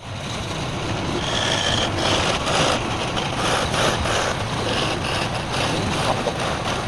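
Wood lathe running steadily, with a turning tool scraping against the spinning wood in uneven passes that come and go.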